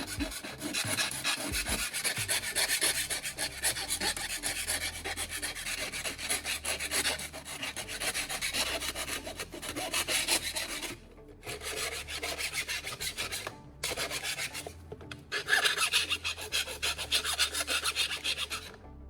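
Metal file scraping in quick back-and-forth strokes along the cut metal rim of an electric kettle's base, deburring the sharp edge. The filing stops briefly about 11 and 14 seconds in.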